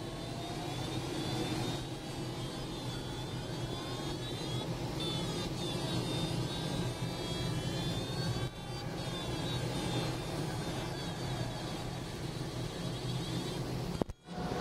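Steady rush of airflow in an Astir CS glider's cockpit, with the audio variometer's electronic beeping tone drifting up and down in pitch as the glider climbs and sinks. The sound drops out briefly near the end.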